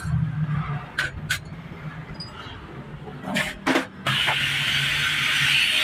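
A few sharp clicks, then, about four seconds in, a gas hand torch's valve is opened and the torch sets up a loud, steady hiss of gas and flame.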